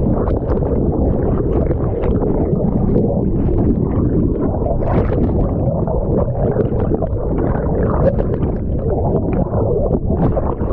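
Whitewater rapids rushing and churning: a loud, steady low rumble of fast water with splashes running through it.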